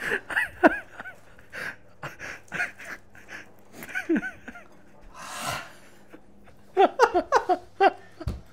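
Stifled, wheezing laughter: short breathy giggles and gasps in bursts, with a longer breathy hiss about five seconds in and a quick run of high giggles near the end.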